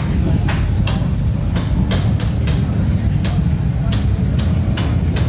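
Low, steady rumble of motorcycle engines running among the parked bikes, with short sharp clicks scattered irregularly through it.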